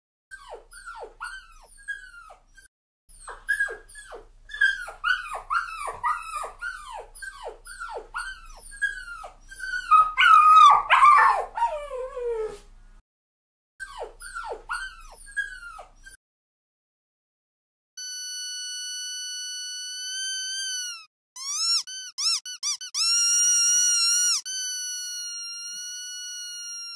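A puppy crying: a long run of short whimpers, each falling in pitch, loudest about ten seconds in and stopping about sixteen seconds in. After a short gap, a squeaky dog toy squeaks: long, steady squeals with a quick run of short squeaks in the middle.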